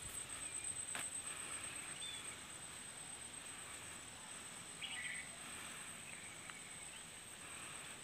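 Faint outdoor ambience: a steady high thin whine throughout, with short bird chirps about two seconds in and again about five seconds in.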